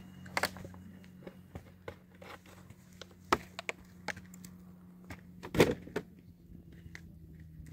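Small fire of dry twigs catching and crackling, with irregular sharp snaps and pops, the loudest about halfway through.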